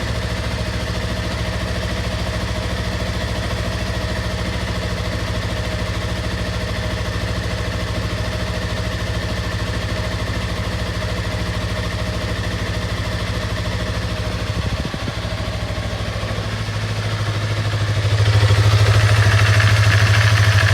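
2016 Yamaha R3's parallel-twin engine idling steadily just after an oil change. It gets noticeably louder and fuller toward the end.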